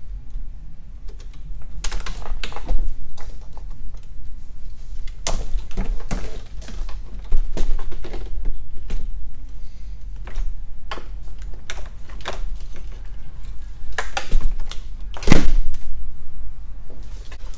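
Hard plastic battery-tray parts of a Ford Escape hybrid battery pack clicking and knocking as the upper tray is pried up and lifted off. The clicks come irregularly, with the loudest knock about fifteen seconds in.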